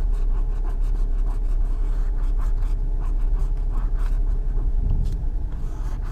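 Scratch-off lottery ticket being scratched in short repeated strokes, over the steady low rumble of a car.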